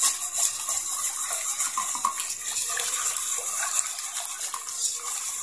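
Hand squishing and swirling a thin flour-and-water batter in a large aluminium wok, a wet sloshing, to break up lumps of flour for a gravy. A steady high hiss runs underneath.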